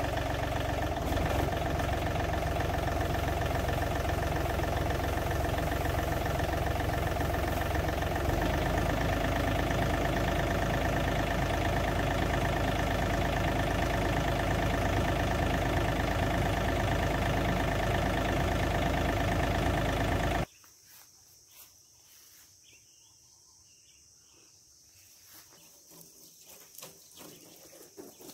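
John Deere 3038E compact tractor's three-cylinder diesel engine running steadily at a constant speed, driving the PTO sprayer pump as it flushes clean water through the spray lines. The sound stops abruptly about twenty seconds in, leaving only faint outdoor sounds.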